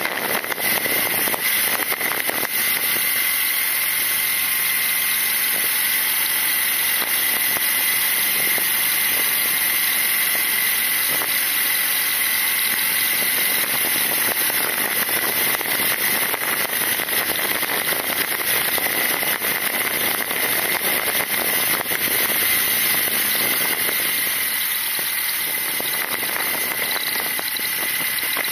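BMW R nineT's boxer twin running at road speed, its low engine note mostly buried under steady wind and tyre noise, with a steady high-pitched whine over it.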